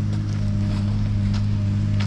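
An engine running at a steady speed, a constant low hum, with a few faint clicks over it.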